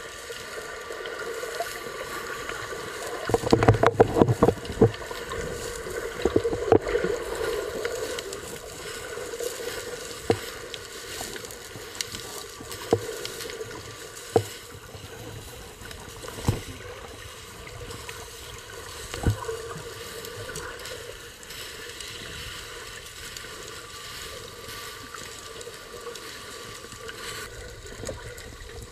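Sea ambience heard through an underwater camera: a steady muffled hum with a few faint steady tones, broken by a burst of sharp clicks and knocks about three to five seconds in and a handful of single clicks later.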